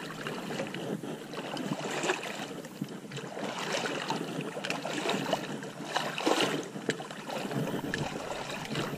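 Irregular splashing and rustling from someone wading through shallow, weedy pond water, with scattered small clicks.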